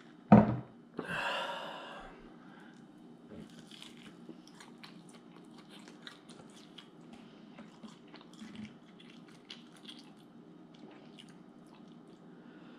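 A person chewing a chicken wing coated in Ghost Reaper hot sauce close to the microphone: many small wet mouth clicks. Near the start there is a sharp knock, followed about a second in by a short noisy sound.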